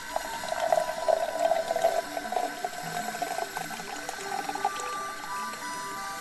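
Hot coffee poured from a titanium French press into an insulated tumbler, a steady splashing fill that thins to a trickle after about three and a half seconds.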